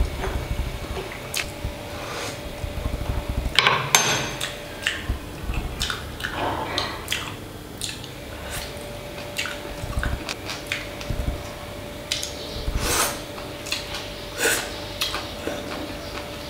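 Eating with chopsticks from a bowl: irregular clicks and clinks of utensils against the bowl, with mouth noises of eating in between. A faint steady hum runs underneath.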